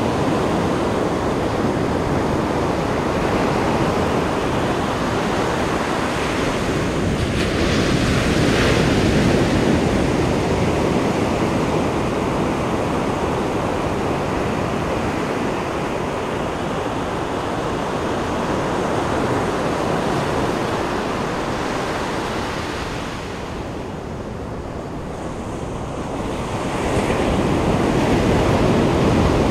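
Ocean surf: a continuous wash of breaking waves that swells louder about eight seconds in, eases into a quieter lull, then builds again as another wave breaks near the end.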